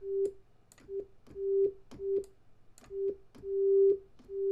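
Cockos ReaSynth software synthesizer playing a pure sine wave: about seven notes on one pitch, some short and some longer, with small clicks between them. The sustain level is being turned down while the notes play.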